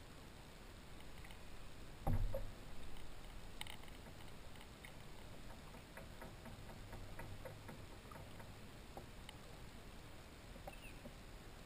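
Faint handling noises from an angler reeling in a hooked fish from a kayak. A single sharp knock comes about two seconds in, followed by scattered light clicks and ticks over a quiet background hiss.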